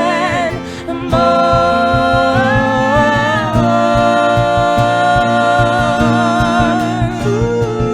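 Live band music with long held sung notes over a steady beat.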